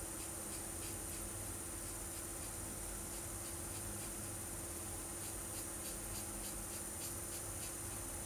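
Felt-tip marker scratching on paper in quick short colouring strokes, about three to four a second, over a steady background hum and a high whine.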